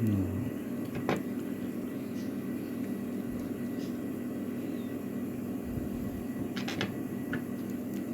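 Light metallic clicks of padlock parts being handled during reassembly: one about a second in, then a short run of clicks near the end, over a steady low hum.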